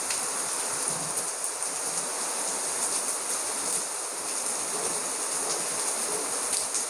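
Heavy rain pouring down steadily, falling straight with no wind, with a few sharper drips among it.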